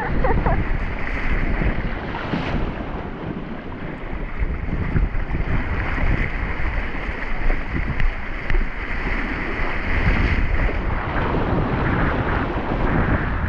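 Heavy wind buffeting the microphone while choppy sea splashes and hisses against the hulls of a Hobie Tandem Island sailing kayak moving fast through rough water.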